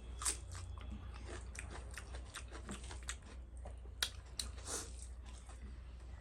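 A person chewing and biting food close to the microphone: irregular wet mouth clicks and crisp crunches, the sharpest about four seconds in.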